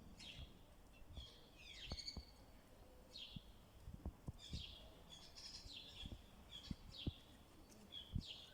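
Birds chirping: many short, quick chirps, some sweeping downward in pitch, with faint scattered low knocks.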